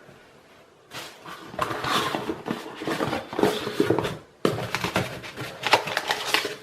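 Crinkling and rustling of packaging being handled, in two stretches with a brief pause between.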